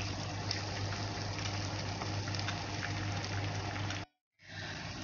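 Potato-and-egg frittata mixture sizzling in hot oil in a nonstick frying pan: a steady hiss with small crackles over a steady low hum. The sound cuts out briefly about four seconds in, then the sizzling resumes.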